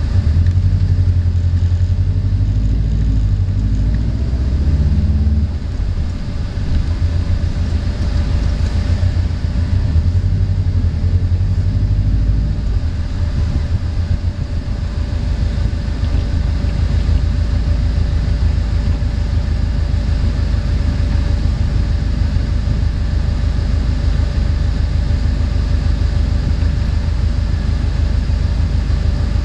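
Turbocharged flat-four engine of a 2002 Subaru WRX running at low speed, heard from inside the cabin as a steady low rumble, with a brief dip about five seconds in.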